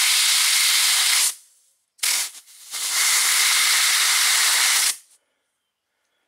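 Compressed air hissing from an air-hose nozzle into a motorcycle brake caliper's fluid port, forcing out two tight, crusty pistons. One blast cuts off about a second in, then a short puff and a second long blast that stops about five seconds in.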